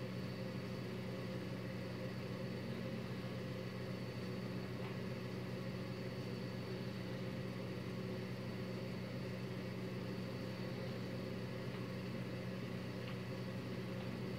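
Steady low mechanical hum with a thin high whine above it and a light hiss, unchanging throughout.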